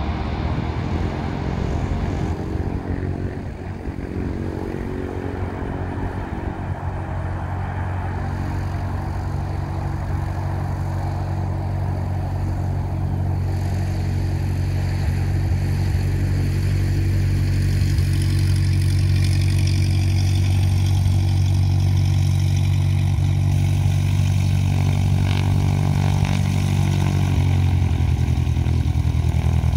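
Single-engine propeller plane's piston engine at takeoff power, a steady low drone as it rolls down the runway and climbs away. The drone grows louder from about the middle and then holds steady.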